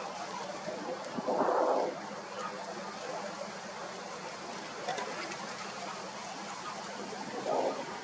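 Greylag geese honking: one short call about a second and a half in and another near the end, over steady background hiss.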